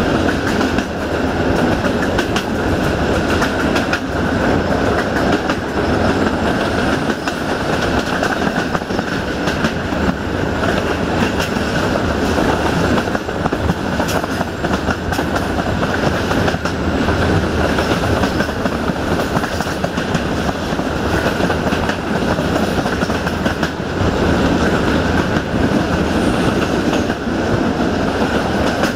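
Passenger train carriages rolling on the rails: a steady rumble and rattle of wheels on track, with scattered clicks from the rail joints, heard at an open carriage window.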